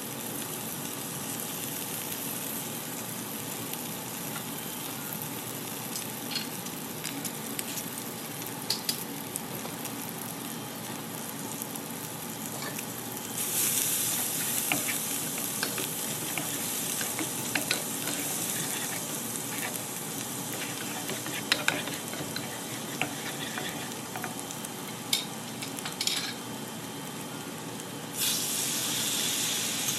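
Garlic and shallots sizzling in butter in a frying pan, with a spatula clicking and scraping against the pan. The sizzle jumps louder about halfway through, and again near the end as white wine is poured into the hot pan.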